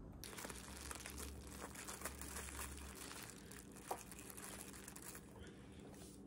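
Plastic cling wrap crinkling and crackling as it is peeled off a sandwich, in a dense run of fine crackles with one sharper crack about four seconds in. The crackling eases off near the end.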